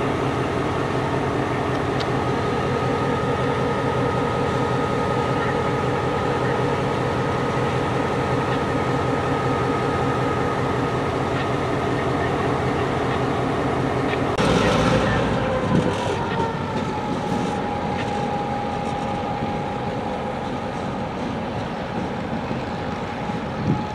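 A train runs steadily with a pitched whine, then passes close about fifteen seconds in with a sudden rush of noise, its whine dropping in pitch as it goes by and the sound slowly fading afterwards.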